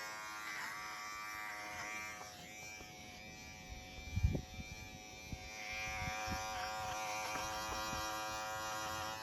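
Electric razor buzzing steadily while shaving off a long beard; the buzz goes quieter for a few seconds in the middle. A few short low thumps, the loudest about four seconds in.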